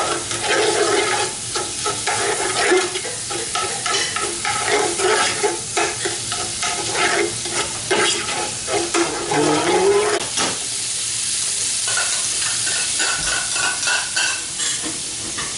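Ginger-garlic paste frying and sizzling in hot ghee in a pot, stirred with a metal spoon that scrapes and knocks against the pot. The stirring stops about two-thirds of the way through, leaving a steady sizzle.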